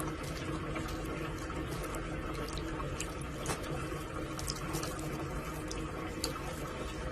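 Steady running water with a few scattered small clicks and ticks.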